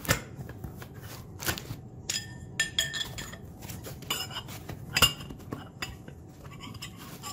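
Black aluminium extrusion frame pieces of a 3D printer kit knocking and clinking against each other as they are handled and lifted out of foam packing: a string of sharp metallic knocks and clicks at irregular intervals, some ringing briefly, the loudest about five seconds in.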